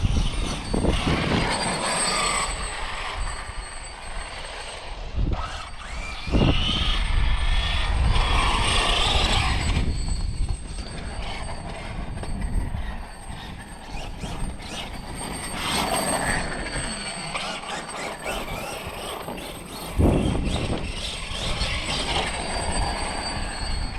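Losi 5ive TE 3.0 electric RC truck driving, its motor and drivetrain whining and swelling louder as it passes close several times, with wind buffeting the microphone.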